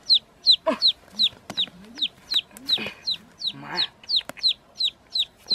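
A chick peeping over and over, short high falling peeps about three a second.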